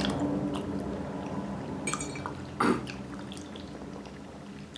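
Eating at the table: wet chewing sounds and metal forks lightly clinking on ceramic plates, with one sharper clink about two and a half seconds in, over a faint low steady hum.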